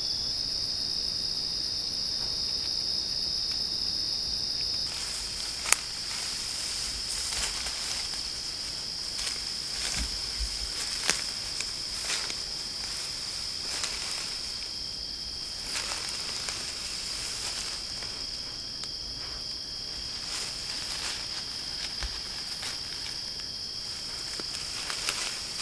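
Steady high-pitched chorus of insects trilling at dusk. From about five seconds in, scattered close clicks and rustles break over it, one sharp click about six seconds in louder than the rest.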